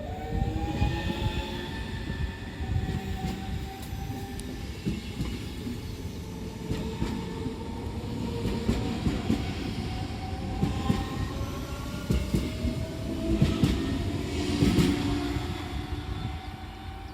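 DB Class 425 electric multiple unit pulling away, its traction converters giving the whining tone behind its nickname 'Quietschie'. The whine rises in pitch, drops back and climbs again several times as the train gathers speed, over running rumble and wheel clicks on the rail joints.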